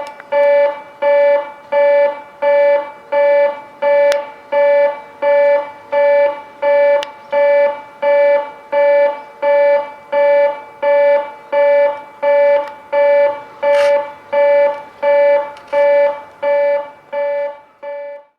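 Train-approach warning at Ōmi Station on the Nihonkai Hisui Line: a loud electronic warning beep repeating about three times every two seconds. The beeping cuts off suddenly near the end.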